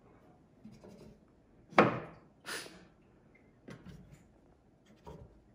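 Handling noise on wooden furniture: a sharp knock a little under two seconds in and a scraping bump just after it, then a few fainter taps and rustles.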